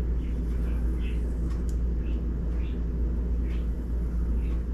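A steady low rumble, with faint light ticks and scratches about twice a second from fingernails picking at the edge of a plastic screen-protector film. He is trying to lift off a layer that would not come away with the peel tab.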